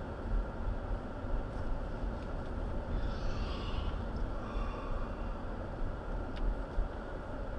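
Steady low rumble of a car's engine and tyres heard from inside the cabin as it drives slowly along.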